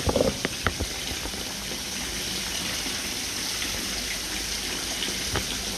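Water flowing out of the fish tanks in a steady rushing gush, with a few sharp clicks near the start and one near the end.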